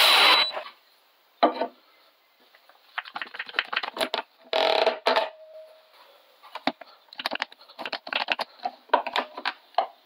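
A cordless drill spins briefly on a screw at the start, then scattered clicks, knocks and short rasps follow as wooden pieces and one-handed bar clamps are handled, with a quick run of clicks near the end as the clamps are squeezed tight.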